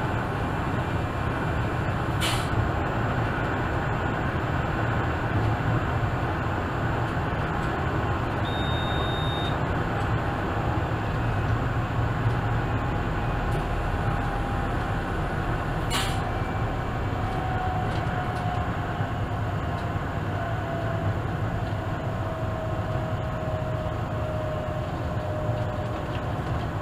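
ÖBB class 4124 electric multiple unit running, heard from the driver's cab: a steady rumble of the running gear with a thin motor whine that falls slowly in pitch through the second half. Two sharp clicks, about 2 seconds in and about 16 seconds in, and a short high beep about 8 seconds in.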